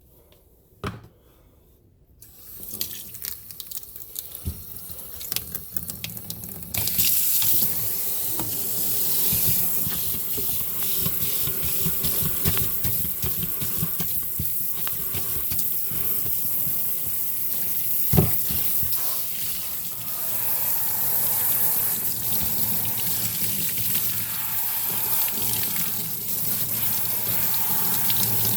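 Sink tap running onto the vacuum's dirty pre-motor filter as it is washed: the water starts about two seconds in, comes up to a full steady stream about seven seconds in, with a click near the start and a knock partway through.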